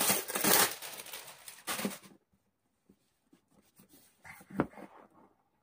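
Gift-wrapping paper rustling and crinkling as a wrapped box is handled and unwrapped, loudest in the first two seconds. Then quieter handling of the box, with a short knock about four and a half seconds in.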